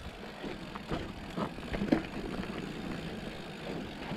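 Mountain bike rolling fast down a dirt singletrack: steady rumble of tyres and wind on the mic, with the frame and drivetrain rattling and knocking over bumps, the loudest knock about two seconds in.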